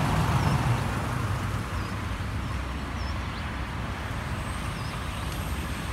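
Road traffic: a motor vehicle's low rumble that slowly fades away, with short high bird chirps now and then.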